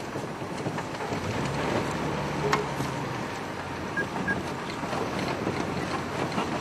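Open game-drive vehicle driving along a dirt track: the engine and rolling noise of the vehicle under a steady rush of wind on the microphone.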